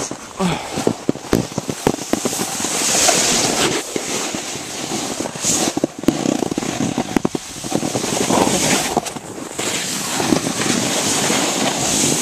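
Snowboard sliding and scraping over the snow down a run, a continuous rushing noise broken by many crackling clicks and knocks from the handheld camera being jostled, with wind on its microphone.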